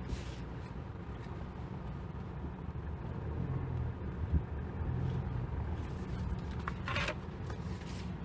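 Mitsubishi Triton pickup's 2.4-litre turbodiesel four-cylinder running at low speed, heard from inside the cab as the truck rolls slowly over dirt: a steady low drone. A light knock about four seconds in and a brief rustle near the end.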